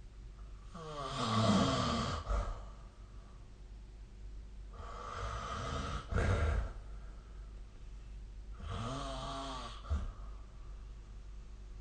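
A sleeping person snoring: three snores about four seconds apart, each a rough, pitched breath ending in a short louder burst.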